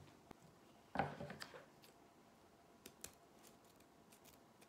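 Scissors cutting ribbon: a few faint, sparse snips and clicks of the blades. A short, louder rustle of the ribbon and deco mesh being handled comes about a second in.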